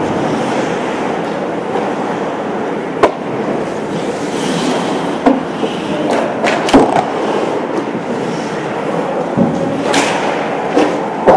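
Game play in a rink or arena: a steady rolling, scraping rumble of play with sharp knocks scattered through it, the loudest about three, seven, ten and eleven seconds in.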